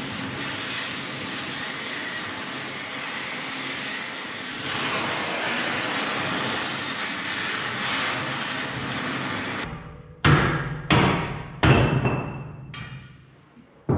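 Oxy-fuel cutting torch hissing steadily as it burns the head off a track-roller bolt on an excavator undercarriage. About ten seconds in the hiss stops, and three or four sharp hammer blows on steel follow, each with a short ring.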